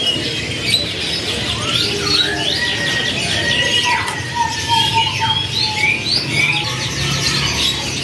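A crowd of caged canaries chirping and calling at once: many short overlapping rising and falling chirps and whistles, with one long steady whistled note through the middle, over a low background hum.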